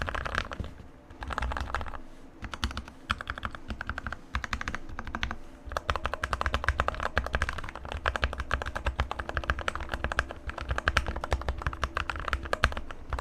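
Typing on a Keychron K2 mechanical keyboard with Gateron red linear switches, modded with lubed switches and stabilizers, a tape mod and sound-deadening foam. It comes in short bursts of rapid key clicks and clacks with brief pauses, then runs fast and unbroken from about six seconds in.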